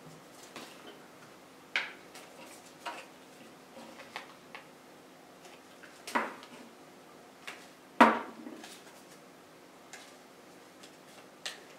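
Scattered light clicks and knocks of a glue stick and cardboard pieces being handled on a tabletop while two paper parts are glued together, the sharpest knock about eight seconds in, with soft paper handling between them.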